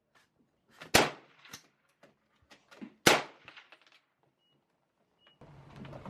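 Two gunshots at a shooting range, about two seconds apart, each a sharp crack with a short tail, with a few fainter clicks between them.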